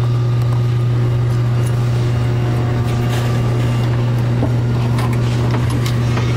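A loud, steady low hum, with a few faint clicks of metal parts being handled about halfway through and again near the end.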